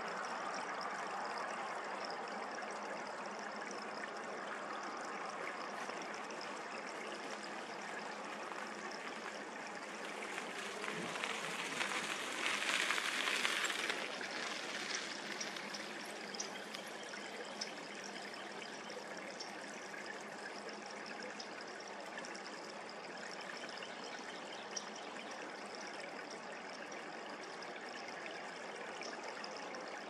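Steady rush and trickle of flowing creek water, swelling louder for a few seconds about twelve seconds in.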